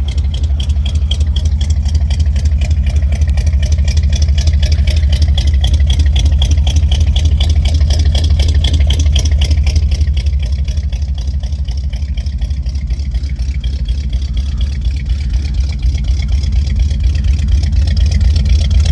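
1986 Chevrolet Blazer's 350 small-block V8 idling with a deep, steady, pulsing rumble. It gets slightly quieter midway and louder again near the end.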